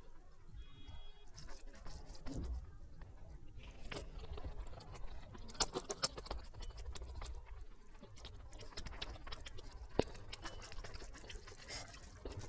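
Sped-up eating sounds: rapid smacking and chewing clicks of someone eating a brinjal (eggplant) dish, with a few sharper clicks scattered through.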